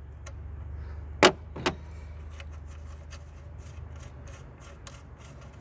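A wrench turning the nut off the alternator's battery-cable terminal stud: a sharp metallic knock about a second in and a smaller one just after, then a run of light metal clicks.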